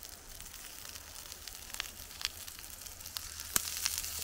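Food frying in a pan: a steady sizzle with scattered pops and crackles that grows louder, with one sharp pop about three and a half seconds in.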